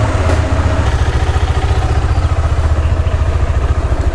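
Motorcycle engine running steadily, a low even engine note with no revving.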